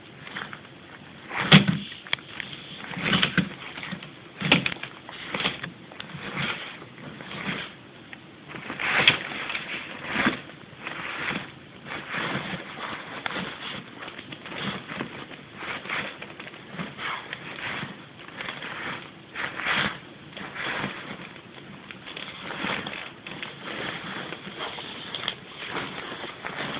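Irregular rustling and scuffing of a fabric blanket in a wicker basket as a dog shoves it about with its nose, trying to bury a pig's ear chew under it. A few sharp knocks stand out in the first ten seconds.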